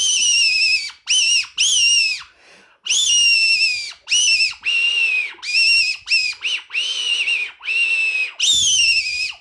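A 3D-printed Squealer fox call, mouth-blown, giving about a dozen shrill squeals in quick succession, some short and some about a second long, each starting high and dropping slightly in pitch. It is a predator call meant to draw in foxes.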